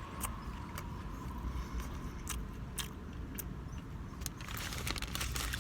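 A person chewing a mouthful of burger, with scattered small mouth clicks over a steady low rumble.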